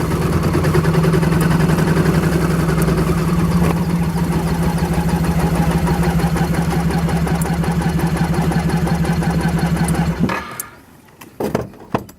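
Suzuki Burgman 650 scooter's twin-cylinder engine running steadily at a constant speed, with the skipping noise its owner suspects is a fouled spark plug, as if missing on one cylinder. The engine shuts off about ten seconds in, followed by a couple of clicks.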